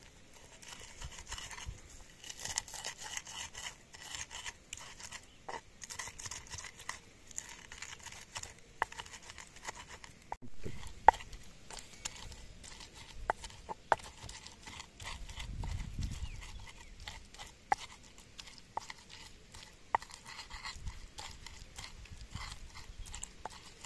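Wooden pestle crushing and grinding fresh chillies, shallots, garlic and tomato in a wooden mortar (Indonesian ulekan and cobek), giving irregular knocks and scrapes as the ingredients are mashed into a wet spice paste.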